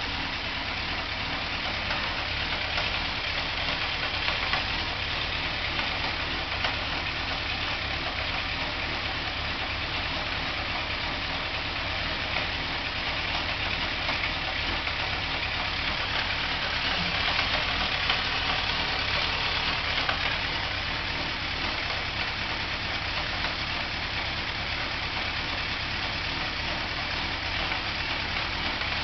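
Suzuki GSX-R 1000's inline-four engine idling steadily with a rattle, which is the fault the owner is showing. It gets a little louder for a few seconds about two-thirds of the way through.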